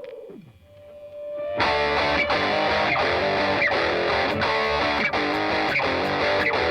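Rock music: a falling tone fades out, then about a second and a half in a distorted electric guitar riff starts and repeats steadily.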